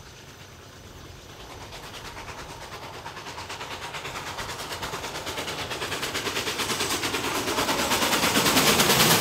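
Steam locomotive 423.0145 approaching under steam, its exhaust beats in a fast, even rhythm. The beats grow steadily louder as it nears and are loudest near the end.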